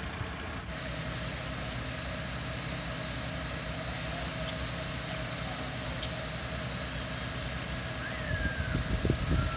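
Fire engine's engine running steadily with an even hum. A low rumbling starts near the end.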